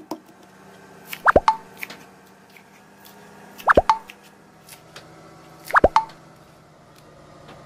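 A cartoon-like 'plop' sound effect three times, about two seconds apart: each a quick bloop that falls steeply in pitch. Between them, faint light knife taps on a wooden chopping board.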